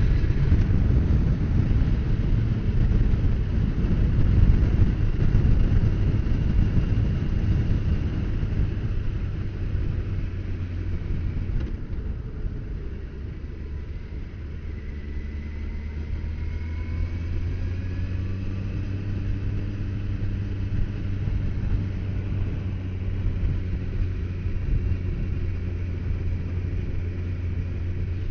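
Engine and road noise from a moving vehicle, heard from on board. It gets quieter about ten seconds in, leaving a steady low engine hum.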